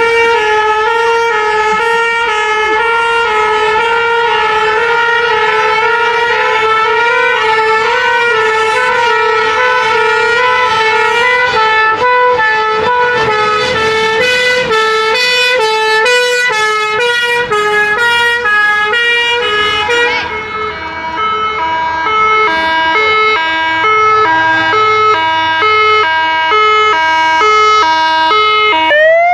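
Two-tone sirens of preserved fire engines sounding together, their alternating high and low notes overlapping out of step. About twenty seconds in, one drops out and a single two-tone carries on. A rising wail starts right at the end.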